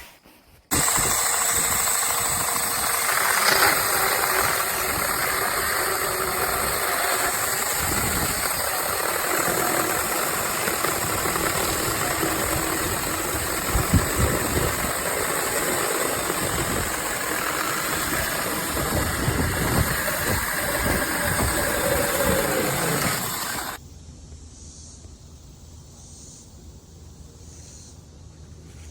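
Cordless electric mini chainsaw running: a steady motor-and-chain whine that starts abruptly about a second in and cuts off suddenly after about 23 seconds.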